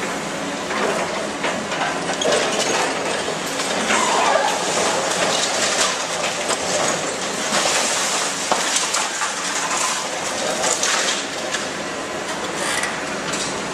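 Concrete being broken by the hydraulic crusher jaws of a Caterpillar demolition excavator: continuous crunching and cracking, with many sharp cracks as broken concrete pieces fall.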